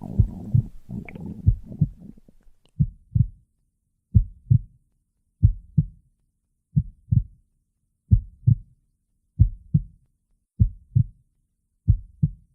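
A heartbeat, picked up close: slow, steady lub-dub pairs of low thumps, about one pair every 1.3 seconds. For the first two seconds a stomach growls and gurgles underneath.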